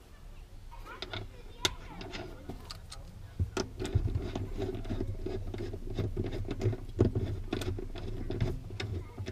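Irregular clicks and metal knocks of a socket ratchet and seat hardware as a car's rear seat mounting bolts are worked loose.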